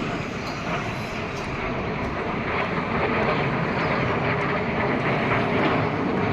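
Jet engine noise from the Surya Kiran team's BAE Hawk jet trainers flying over the airshow, a steady rushing sound that slowly grows louder.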